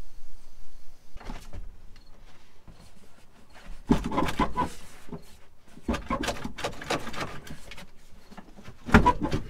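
Rear bench seat of an old car being wrenched up and shifted by hand: irregular bursts of creaking, scraping and rustling from the seat springs and upholstery, with a short louder clunk near the end.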